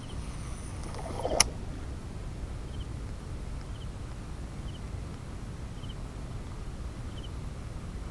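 A cast with a baitcasting reel: a faint high whine from the spinning spool for about a second, ending in one sharp click about a second and a half in. After that, steady low outdoor noise with a faint short chirp about once a second.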